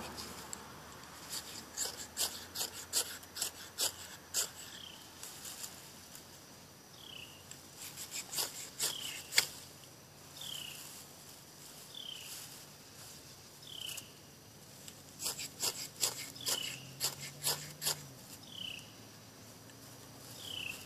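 Ferro rod scraped with a striker in three bursts of quick rasping strokes, trying to throw sparks into a dry-grass bird's-nest tinder bundle. A short falling chirp repeats faintly in the background.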